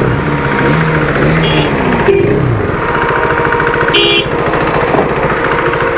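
Several motorcycle engines running close by, their pitch gliding up and down, one falling away about two and a half seconds in. Two short beeps, about a second and a half in and about four seconds in.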